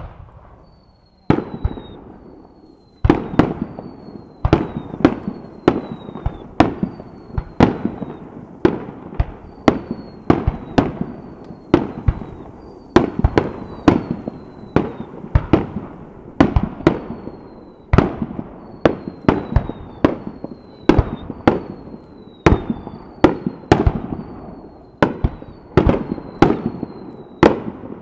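Aerial fireworks going off in quick succession: a rapid string of sharp bangs, about one or two a second, each trailing off in a brief echo. Many bangs are followed by a short high whistle that falls slightly in pitch.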